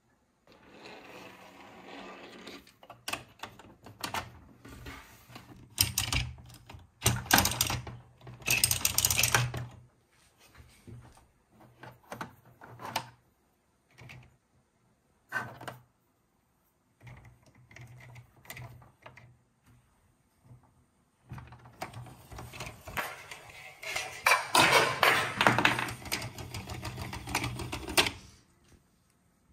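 Small plastic toy shopping trolley clattering down a twisted plastic spiral ramp: a fast run of rattling clicks lasting several seconds near the end. Earlier there are scattered clicks and short rattles of plastic toy pieces being handled.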